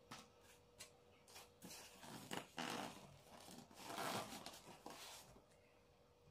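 Faint handling noise of unboxing packaging: a few small clicks, then several bursts of rustling and scraping as a hand reaches into the foam tray and the plastic wrap around it.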